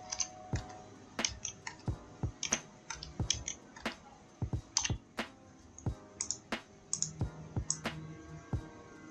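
Computer keyboard keys being typed at an uneven pace, about two sharp keystroke clicks a second, as a word is typed out.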